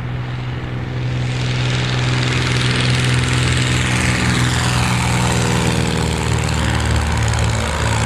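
Single-engine high-wing light plane taking off at full power: a steady piston engine and propeller drone that grows louder over the first couple of seconds as the plane rolls down the runway, then holds as it lifts off.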